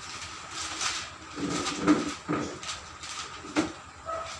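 Irregular knocks and scrapes of things being handled, loudest about two seconds in, over a faint steady hum.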